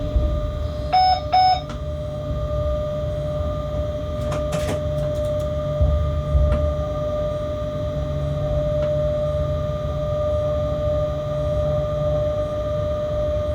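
Freight locomotive cab while running: a steady low rumble with a steady whine over it. Two short electronic beeps sound about a second in, and a couple of knocks come about six seconds in.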